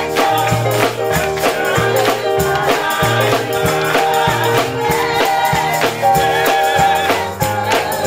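Gospel choir singing together over a band accompaniment with a low bass line and a steady beat, hands clapping along in time.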